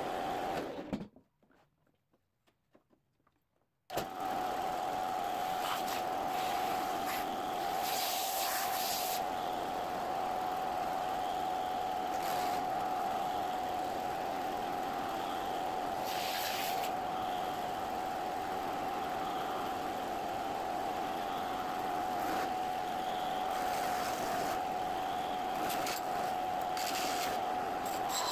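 Bench belt-and-disc sander running with a steady motor hum, cutting out abruptly for about three seconds near the start. A few short scraping hisses come and go as the dull hatchet edge is touched to the sanding belt to sharpen it.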